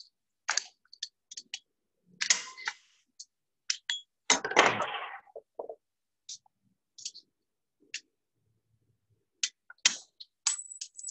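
Irregular metallic clicks and clinks of a hand tool and small parts being worked on an inline diesel fuel injection pump body, with one longer rattle about four seconds in.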